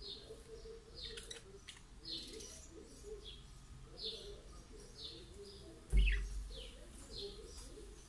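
Budgerigars chirping: short, high chirps repeated about once a second. A single low thump about three-quarters of the way through is the loudest sound.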